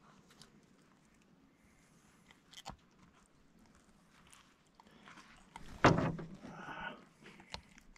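Faint rustles and small clicks of a caught flathead being handled on a wet vinyl measuring mat, then a sharp thump about six seconds in followed by a second or so of scuffling.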